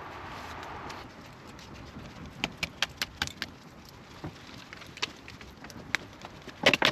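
Wood campfire crackling, with scattered sharp irregular pops and a quick run of them near the end, as thin dry twigs and birch bark burn against the logs of a nodya fire.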